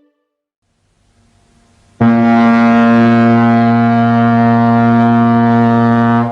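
Ship's horn sounding one long, steady, deep blast at a constant pitch. It starts abruptly about two seconds in, after a faint low rumble, and stops near the end.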